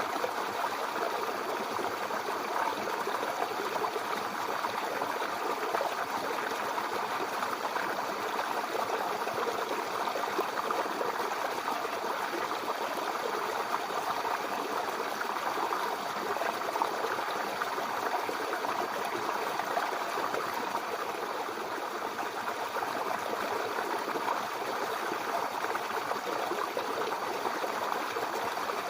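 Brook babbling over stones: a steady, unbroken rush of flowing water with fine gurgling detail.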